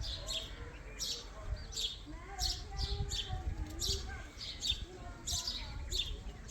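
Baby Indian ringneck parrot chirping: short, high, downward-sliding chirps repeated about two to three times a second.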